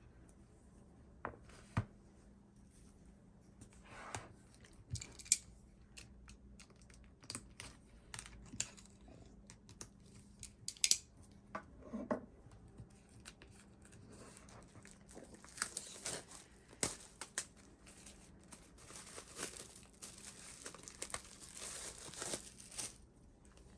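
Album packaging being handled and unwrapped: scattered taps and clicks, then a longer stretch of tearing and crinkling in the second half.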